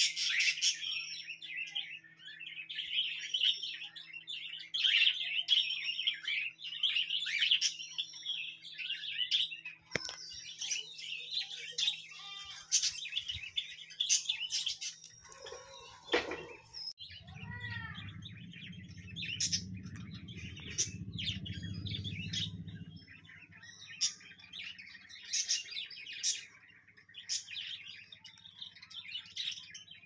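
Pineapple green-cheeked conures chirping and calling, a dense run of high chirps for about the first ten seconds, then sparser sharp chirps. A low rumble joins for about five seconds just past the middle.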